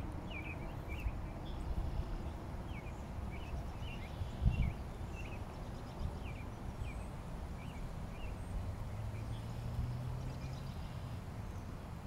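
Small birds chirping, short high calls about two a second that thin out after about eight seconds, over a low rumbling noise on the microphone; a single bump about four and a half seconds in.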